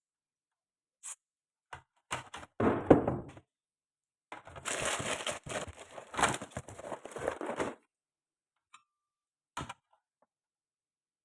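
Bench repair handling noises: a few light clicks, a louder clatter about two seconds in, then about three seconds of scraping and rustling, and two more clicks near the end.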